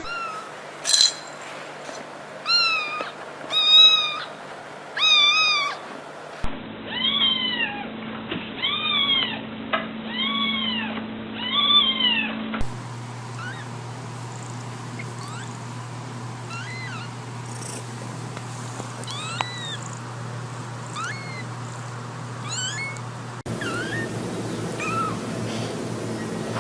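Domestic cats meowing again and again, each meow rising then falling in pitch, about one a second. The sound changes abruptly a few times as different cats take over, and the later meows are fainter and shorter.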